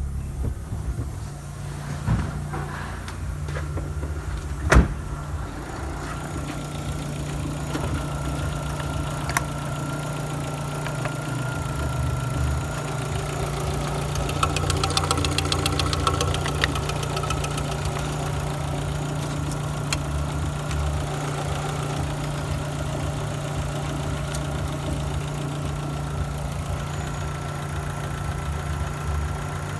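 Opel Meriva A's 1.8-litre Z18XE four-cylinder petrol engine idling steadily, with one sharp click about five seconds in.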